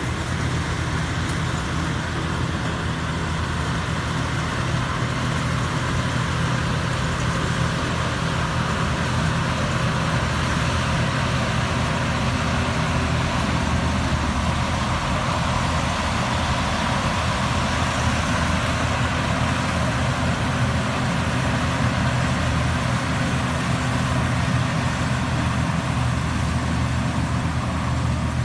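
Rice combine harvester's diesel engine running steadily at working speed, with the even mechanical noise of the machine.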